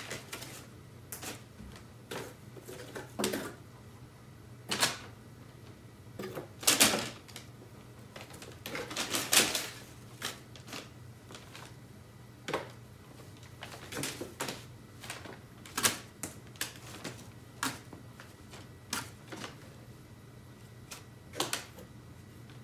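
Crumpled brown kraft paper crinkling and rustling in a cardboard box as a cat moves about in it, in short irregular bursts, the loudest two a little before and after the middle.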